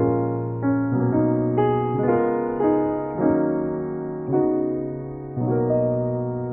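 Slow, soft piano music: notes and chords struck about once a second, each ringing and fading before the next.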